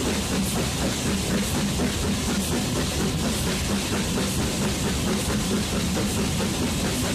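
Steam locomotive under way, heard close up from the cab: steady, rhythmic exhaust chuffing over the running noise of the train on the rails.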